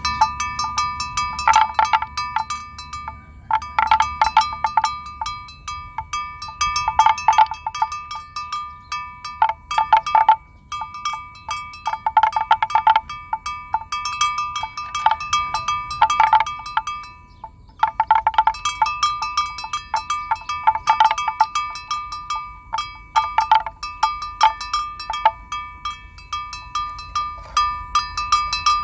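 Metal bells clanking in irregular runs of strikes, each run ringing on at two close pitches. There are short breaks about ten seconds in and again past halfway.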